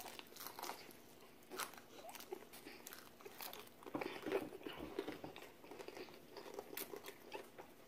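Faint, irregular crunching and chewing as crispy fried chicken is bitten into and eaten.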